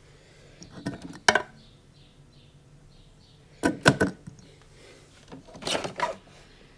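Three short bursts of clattering clicks and knocks from plastic and metal parts of a bean-to-cup espresso machine being handled, the last as the drip tray and grounds container are pulled out near the end.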